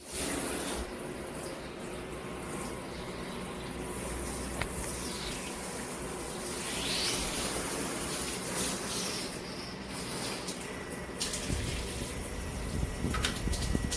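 Water spraying steadily from a shower head.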